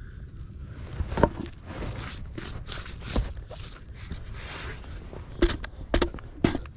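Footsteps on railroad ballast rock, separate sharp steps that come about every half second near the end.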